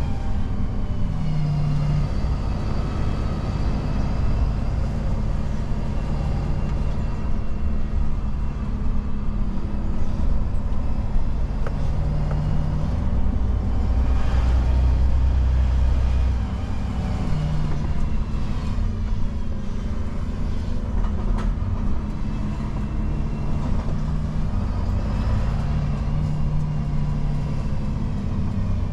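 Garbage truck's diesel engine and drivetrain heard from inside the cab while driving slowly, the engine note rising and falling several times.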